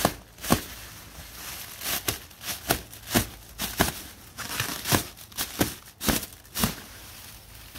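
Clear plastic wrapping crinkling and crackling as it is pulled and gathered off a machine, in many sharp, irregular crackles.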